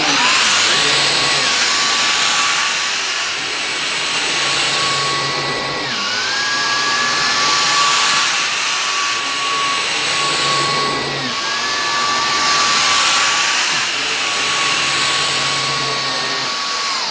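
Numatic Hetty Quick cordless stick vacuum running on boost with its brush-roll floor head pushed back and forth over carpet: a loud steady motor whine over rushing suction, its tone dipping and shifting about every five seconds with each stroke. The floor head keeps turning without cutting out. The vacuum switches off abruptly at the end.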